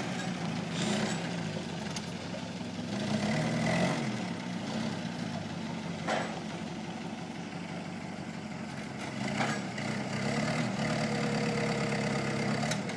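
Forklift engine running under load, rising in speed a few times as it works the lift of an overloaded forklift, with a couple of short knocks.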